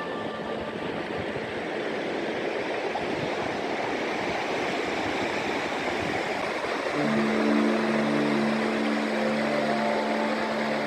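A steady rushing noise, with soft background music of held notes coming in about seven seconds in.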